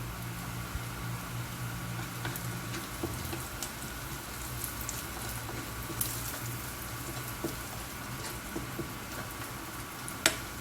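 Chopped garlic and onion sizzling gently in a little oil over low heat, with scattered small pops and crackles. A single sharp click near the end.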